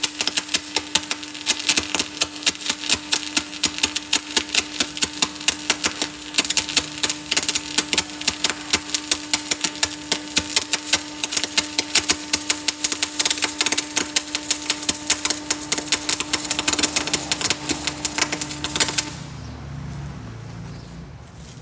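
A machine running with a steady hum under a rapid stream of sharp clicks, stopping abruptly about nineteen seconds in.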